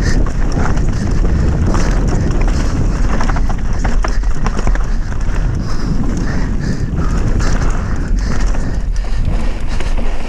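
Enduro mountain bike descending a rough dirt trail at race speed: wind buffeting the mounted camera's microphone, tyres scrabbling over loose dirt and roots, and many quick rattling knocks as the bike hits bumps.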